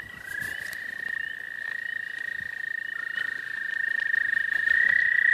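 Several toads trilling at once: long, steady, high trills at slightly different pitches overlapping, the chorus growing louder near the end. The uploader suspects eastern American toads.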